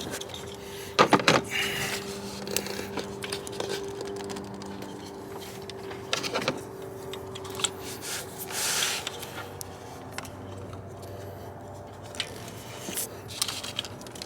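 Hand tools and metal parts clinking and knocking during work on the engine, with a loud cluster of knocks about a second in, scattered clicks after, and a faint steady hum underneath.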